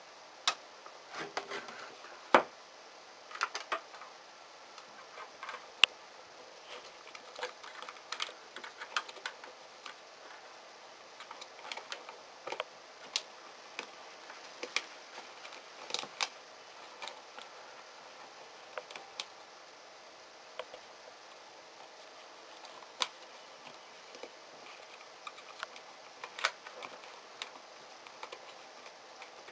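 Hands handling small parts and a plastic lamp housing while fitting LED strips into a desk lamp head: irregular sharp clicks and taps, a few of them much louder.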